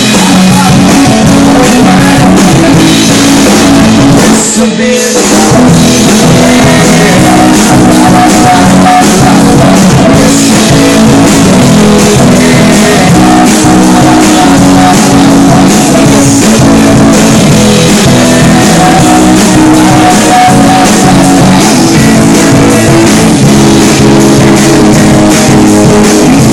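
Loud live rock jam from a band with drum kit and guitars, playing steadily with a brief drop about five seconds in.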